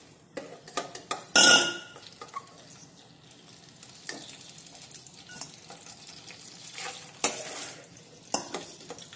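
Steel ladle scraping and knocking against a kadai as fried cluster beans and potato pieces are scooped out of the hot oil. A loud ringing metal clank comes about a second and a half in, and a few more sharp knocks follow later, with faint sizzling of the oil between.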